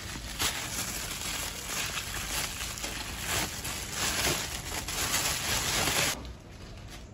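A thin plastic bag crinkling and rustling steadily as hands open and handle it, stopping near the end.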